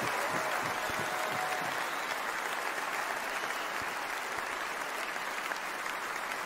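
Large crowd applauding, the clapping slowly easing off.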